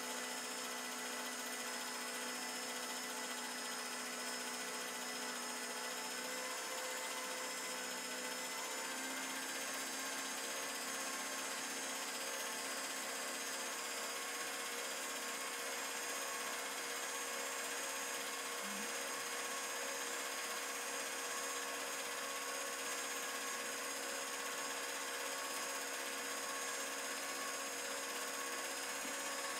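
Home-movie film projector running steadily, its motor and film mechanism making a continuous mechanical whir. The pitch of its hum steps up slightly about seven seconds in.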